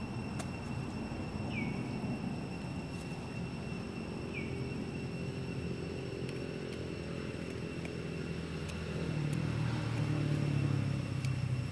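A motor vehicle engine running nearby, a low steady hum that grows louder from about nine seconds in, with two short high chirps over it.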